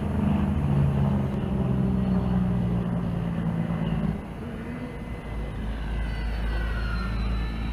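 Twin 80 mm electric ducted fans of a Freewing A-10 Warthog RC model jet running in flight, a steady loud rush with a low hum through the first half. Near the end a sweeping whine rises and falls as the jet passes.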